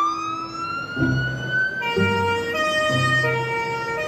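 Fire engine's electronic siren winding up in a rising wail, then switching to a two-tone hi-lo pattern that alternates about twice a second. A deep low tone sounds in short blasts about once a second beneath it.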